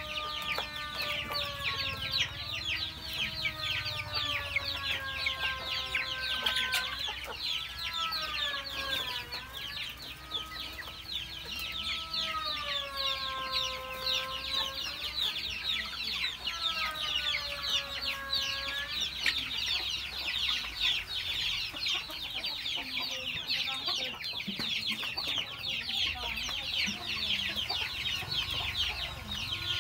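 A flock of young chickens clucking and cheeping continuously as they feed, many short high calls overlapping. Behind them, a long, slowly wavering held tone, in drawn-out notes, runs through roughly the first two-thirds and then stops.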